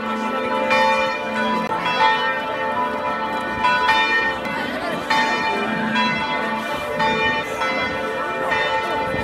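Church bells ringing in a peal, several bells of different pitches struck one after another. The ringing starts suddenly.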